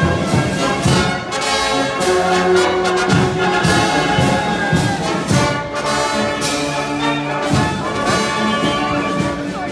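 Marching wind band playing a march while on the move: brass and clarinets over drums keeping a steady beat of about two a second.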